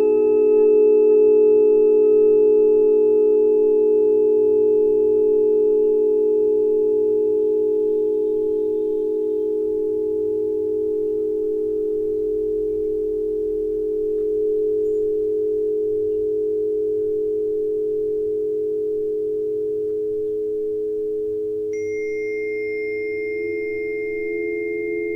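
Sustained, overlapping pure tones: a cluster of low pitches held together and slowly fading. New, higher ringing tones join about three-quarters of the way through.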